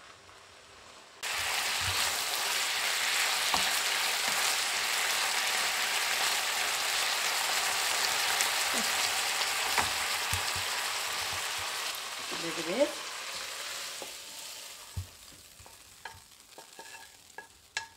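Strips of veal sizzling in a hot frying pan as they are stirred with a wooden spatula, a steady hiss that starts abruptly about a second in and fades away near the end. A few light knocks and scrapes follow as the spatula pushes the meat out of the pan into a metal tray.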